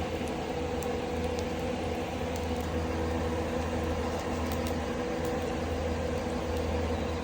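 Ceiling ventilation fan running loudly and steadily with a constant hum as it draws wood smoke out of the tent, nearly burying the fire. A few faint crackles from the burning firewood come through it.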